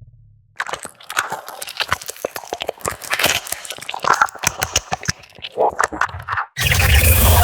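Giant spider creature sound effect (Shelob): rapid, irregular wet clicking and chittering, like chewing, with a few short squeaks. It stops suddenly near the end, and a loud, steady, noisy creature sound cuts in.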